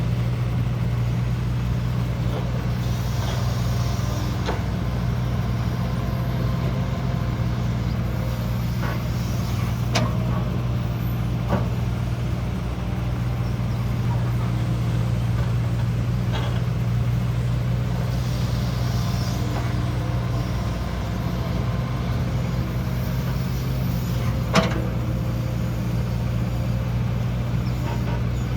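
Heavy diesel earthmoving machinery running steadily, with a few sharp clanks and knocks and brief bursts of hissing.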